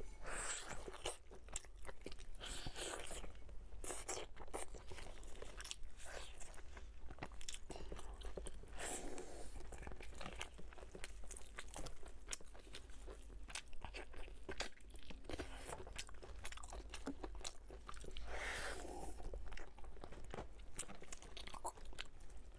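Close-miked chewing and biting of a braised pork knuckle, with many wet clicking and smacking mouth sounds. Louder, longer bursts of biting come near the start and a few more times, about 3, 9 and 19 seconds in.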